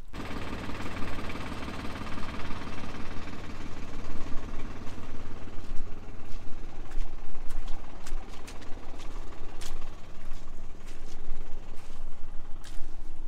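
Truck caravan's engine running steadily, with a low, even drone, as the stuck vehicle sits bogged in soft mud. A few sharp clicks are scattered through the latter part.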